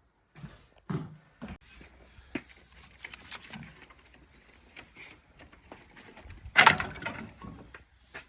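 Wooden boards and debris being pulled down and dropped during demolition: scattered knocks and clatters of wood, with one loud crash about six and a half seconds in.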